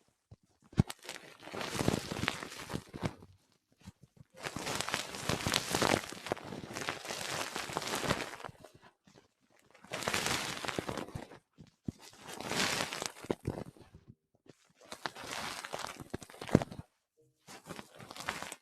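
Close-miked ASMR rustling and crinkling, coming in about six bursts of one to four seconds with short pauses between them.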